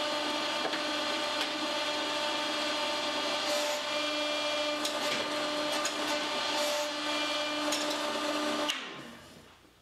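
The hydraulic pump and electric motor of a homemade hydraulic forging press running steadily with a humming whine, while the ram is driven up against its adjustable stop. A few faint ticks sound over it, and the sound fades away about nine seconds in.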